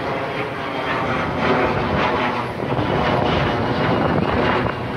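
Steady, loud rushing vehicle noise with no clear start or stop.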